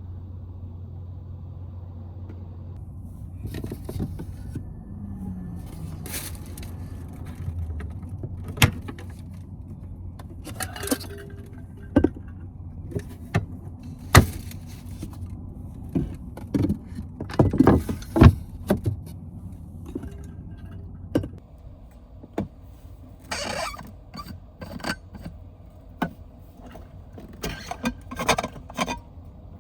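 A car engine idling with a low steady hum that stops about eight seconds in, then irregular clicks, knocks and rattles of things being handled and set down.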